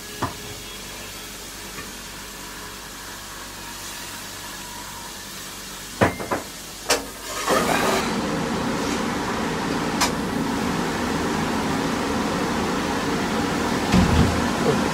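Cooking at a gas stove with a wok of bubbling sauce: at first a low steady hiss with a few sharp clacks of a utensil on the pan. About halfway through a much louder steady rushing noise starts and holds. Near the end there are a few dull thumps as a heap of morning glory goes into the wok.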